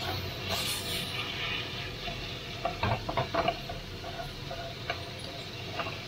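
Diced chicken breast sizzling in a non-stick frying pan while a spatula stirs and turns it. The spatula scrapes and taps against the pan in a quick cluster about halfway through, then once or twice more near the end.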